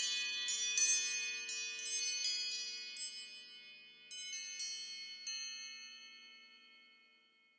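iPhone alarm tone: a string of bell-like chime notes, struck quickly at first and then further apart, ringing on and fading away to silence about seven seconds in.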